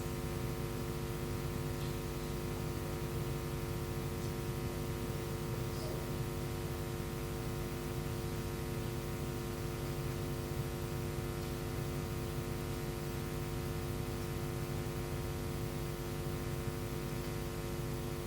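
Steady electrical hum and hiss, with several steady tones layered over it and no other distinct sounds.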